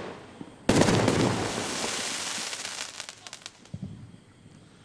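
Firework bursting with a loud bang about a second in, then a long crackling, fizzing tail with many sharp pops that dies away after about three seconds, and a few last scattered pops.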